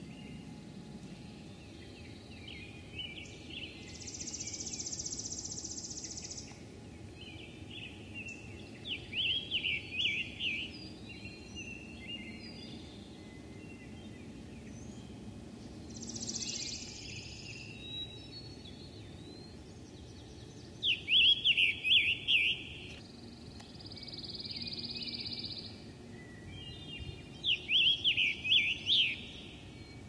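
Wild songbirds singing: three loud, fast trilled phrases stand out, the loudest two near the middle and near the end, with softer chirps in between and a few high buzzes, each a second or two long.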